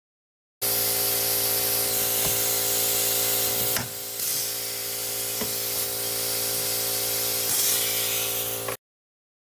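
Pneumatic hand tool on a compressed-air hose, giving a loud steady air hiss with a constant hum of tones. There is a sharp click about 4 seconds in, where the hiss drops a little, and another click about 5.5 seconds in.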